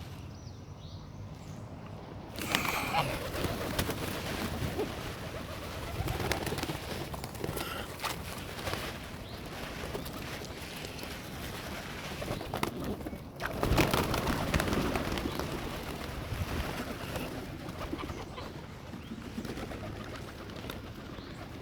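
Birds crowding round to be fed, with pigeons cooing among them. There are two louder noisy flurries, one about two and a half seconds in and a longer one around thirteen seconds in.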